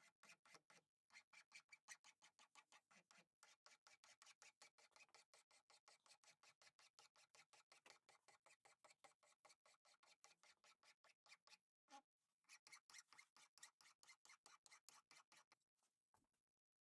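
Flat hand file rasping in quick, even strokes, about three or four a second, across the metal tang end and washer at the butt of a wooden sickle handle. There is a short pause about two-thirds of the way through, and the filing stops shortly before the end.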